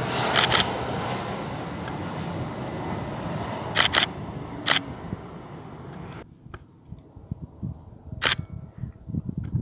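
Boeing 767-300F cargo jet on final approach: a steady rushing jet noise, slowly fading. Sharp clicks break it twice near the start and three times around four seconds in. About six seconds in the jet noise cuts off abruptly, leaving quieter gusty wind rumble with another click.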